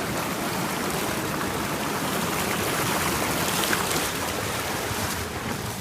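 Steady rush of river water pouring over and through a timber crib dam under construction, the river running high.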